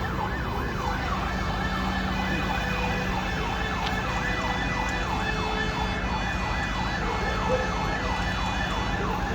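Fire engine's electronic siren on a rapid yelp, each fast downward sweep repeating about three times a second, with the truck's steady engine hum underneath.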